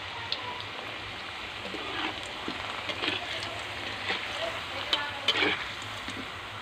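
Star-shaped potato fries deep-frying in hot oil in a wok: a steady sizzling hiss. A slotted spatula stirs them, adding a few short knocks and scrapes against the wok in the second half.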